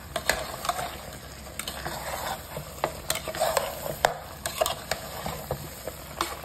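A spatula stirring mutton and spice powders in a pressure cooker, with irregular sharp scrapes and knocks against the pot's metal side. Under them is a steady sizzle of the meat frying in oil.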